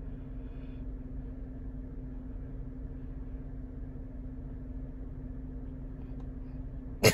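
Steady low hum of a parked car running, heard inside the cabin. A brief loud burst cuts in right at the end.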